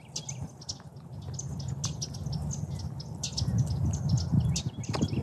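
Small birds chirping all around, many short high calls overlapping in quick succession, over a steady low rumble.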